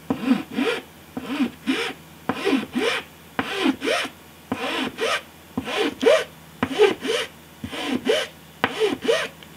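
A light file rasping back and forth over the edge of a blade made of glue-hardened layered paper, in short even strokes about two a second, straightening the edge.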